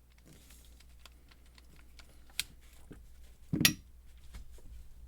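Screwdriver working a stubborn screw in a metal lock body: light metal clicks and scrapes, a sharp click about two and a half seconds in, and a louder clack about a second later. The screw seems to be stripping.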